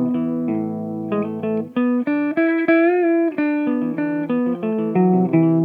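Clean electric guitar, a Kramer, played through a Marshall cabinet. It plays a riff of plucked single notes, with a held note that wavers in pitch about three seconds in.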